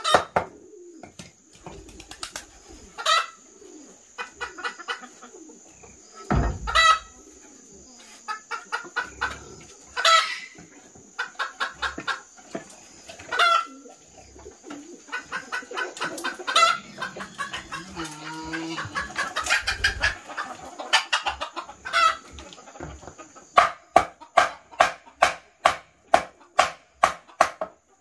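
Hens clucking and cackling: runs of short clucks, each run ending in a loud, drawn-out squawk, repeating every few seconds.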